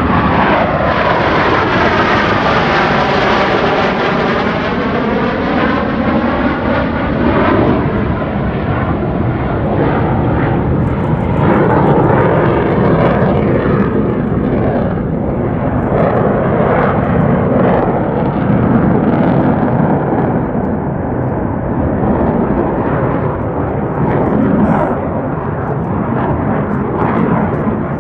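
Blue Angels F/A-18 Super Hornet jets making a loud pass, their roar sweeping down in pitch over the first few seconds, then a continuing loud, rumbling jet noise.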